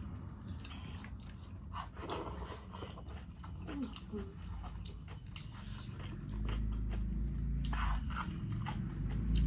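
Close-up chewing and biting sounds of people eating a meal of chicken and rice, with scattered crunchy clicks. A steady low rumble comes in about six seconds in.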